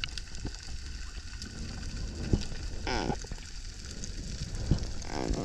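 Underwater ambience on a diver's action camera: a steady low rumble and hiss of water moving past the housing as the freediver swims, with scattered faint clicks and two brief downward-bending whines, about three seconds in and near the end.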